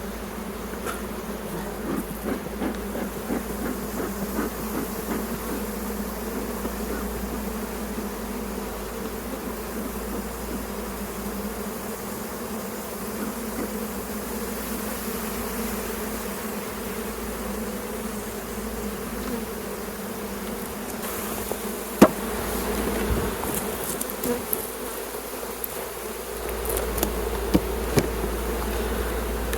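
Honeybees buzzing around an open hive: a steady, dense hum from many bees. A single sharp knock about three-quarters of the way through and a few lighter taps near the end.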